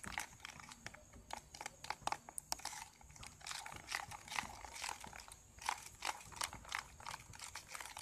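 A plastic spoon stirring thick blue glue in a plastic bowl to mix in baking soda, scraping against the bowl in an irregular run of small quick clicks and scrapes.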